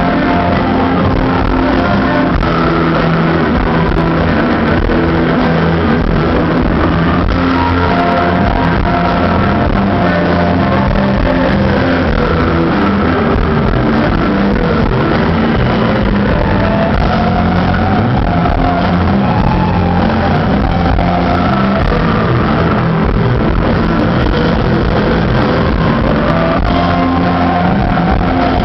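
Rock band playing live: electric guitars, bass guitar and drums, loud and continuous.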